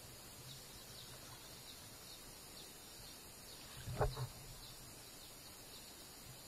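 Faint outdoor ambience: a steady low background with small high-pitched chirps repeating every half second or so. About four seconds in, a single brief louder sound breaks in and stops at once.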